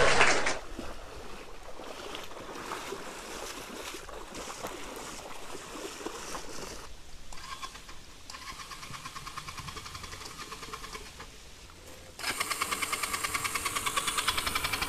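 Motorcycle engine idling with a fast, even beat of firing pulses, faint for most of the time and suddenly much closer and louder near the end.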